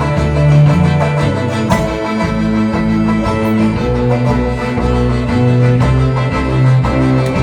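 Live band playing during a sound check, with guitar over loud, sustained bass notes that change every second or so.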